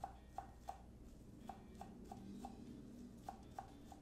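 Chef's knife slicing green onions on a bamboo cutting board: faint, even taps of the blade on the wood, about three a second, in short runs with brief pauses.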